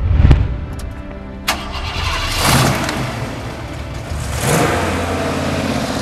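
A sports car engine revving hard twice, over a low steady music drone. It opens with a loud low thump, and there is a sharp click about a second and a half in.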